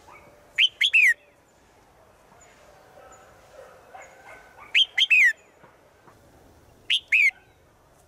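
Red-whiskered bulbul, a female calling to males, gives three short calls about two seconds apart. Each call is a quick run of two or three sharp notes that sweep down in pitch.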